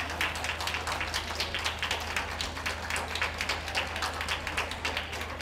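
Audience clapping: a dense, irregular patter of hand claps over a steady low hum.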